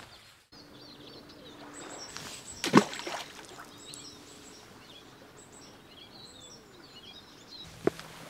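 Small birds chirping, with one loud splash into shallow water about a third of the way through, and a sharp tap near the end.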